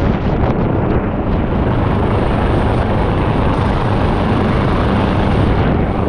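Loud, steady noise of a hovering AgustaWestland AW139 search-and-rescue helicopter heard from directly beneath it at the cabin door: turbine and rotor noise mixed with rotor downwash buffeting the microphone.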